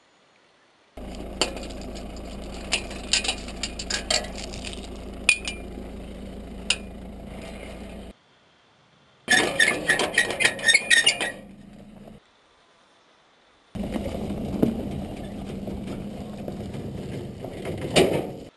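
Sliding bolt latch on an iron gate worked by hand, metal clinking and rattling for about two seconds near the middle. Around it are separate stretches of outdoor rumble with scattered clicks, the last of them a car towing a trailer along a dirt track, with a sharp knock near the end.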